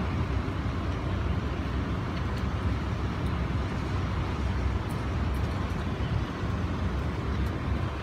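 Strong typhoon wind blowing steadily: a dense rushing noise with a heavy low rumble.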